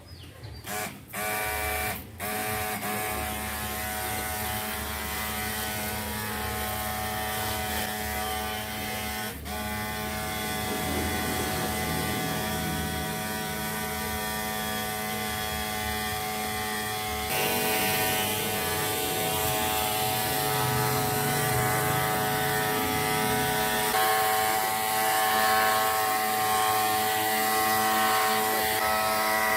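Kurenza 12–24 V mini diaphragm water pump, the 340 psi pressure-washer pump, powered by a 20 V drill battery, running with a steady buzzing hum. It starts and stops a few times in the first two seconds, then runs on, changing tone about 17 seconds in and again about 24 seconds in.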